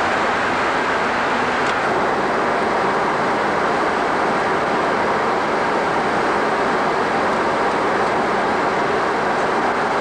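Steady, even rushing noise on the flight deck of a Boeing 747-200 in descent, recorded through an early-1980s VHS camcorder microphone.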